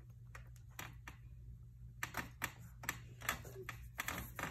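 Light plastic clicks and taps of small fidget toys being handled and set down on a pile, coming quicker and a little louder in the last couple of seconds.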